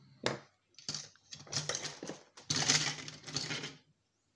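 Metal and plastic parts of an electronic unit being handled during dismantling: a run of clattering and scraping, loudest about two and a half seconds in.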